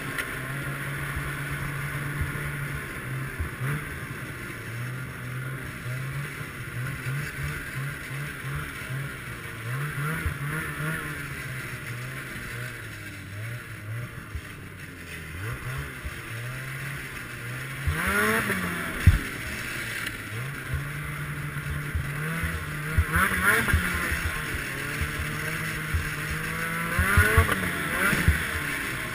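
Ski-Doo Summit X snowmobile's two-stroke engine running on a snowy trail, its pitch rising and falling with the throttle, with louder revving surges in the second half. A single sharp knock stands out about two-thirds of the way through.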